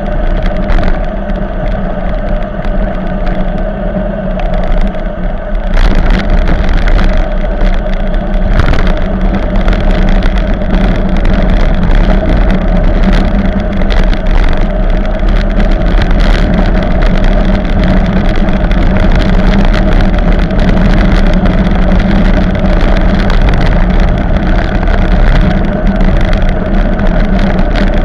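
Loud, steady wind rush and rumble on the microphone of a camera on a bicycle coasting fast downhill. It gets louder about six seconds in as the bike picks up speed.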